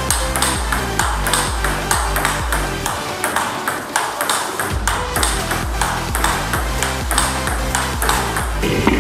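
Table tennis rally: a plastic ball is struck with forehand topspin and bounces on the table in a quick, steady rhythm of sharp clicks. Electronic background music with a bass line runs underneath, and its bass drops out for a moment around the middle.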